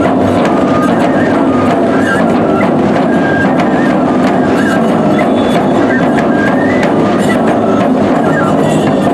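Nebuta bayashi festival music: bamboo flutes playing a melody over taiko drumming and the clash of hand cymbals.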